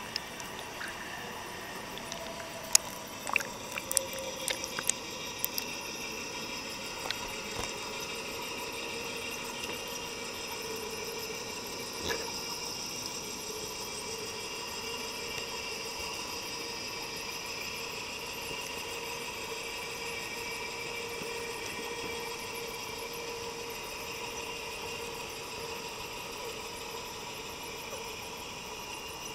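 Pool vacuum cleaner running steadily, its motor giving a constant whine, with a scatter of sharp clicks and knocks in the first several seconds.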